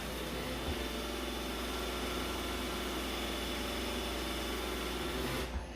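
Robot vacuum running with a steady whirring hum and hiss. The hiss drops away sharply about five and a half seconds in.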